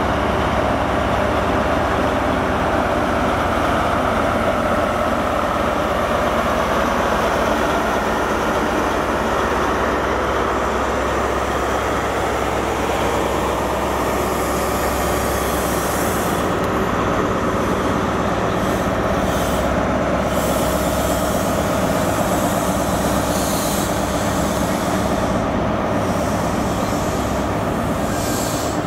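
A class 43 HST power car's diesel engine running as the train moves slowly away from the platform, followed by the rumble of its coaches rolling past. The low engine drone fades about halfway through.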